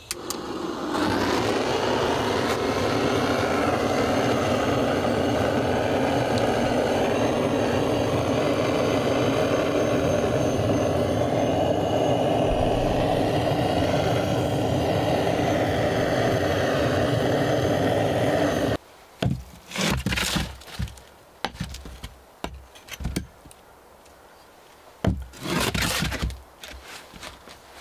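Handheld gas torch on a fuel cartridge burning with a steady rushing noise as it scorches a wooden bench top. It stops suddenly a little over halfway through, and a few short knocks and scrapes of wood follow.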